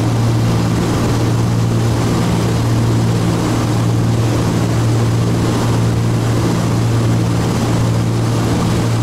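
Cabin noise of a Cessna T303 Crusader in flight: its two turbocharged Continental six-cylinder engines and propellers running steadily as a loud, low drone, with a slow throb about once a second.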